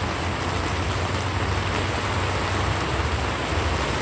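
Steady rushing background noise with an unsteady low rumble underneath.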